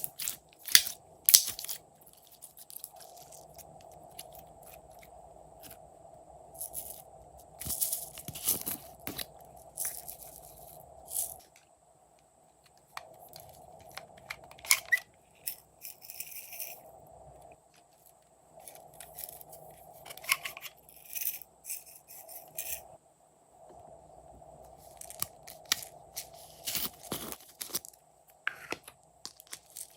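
Hands squishing and stretching glossy slime, giving sticky crackling clicks and pops in bursts every few seconds, with short pauses between.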